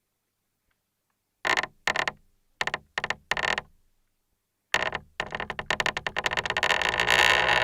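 Creaking picked up through a Schaller Oyster 723 piezo contact mic. Five short creaks come in the first half, then after a pause a longer creak of rapid crackling clicks that builds louder toward the end.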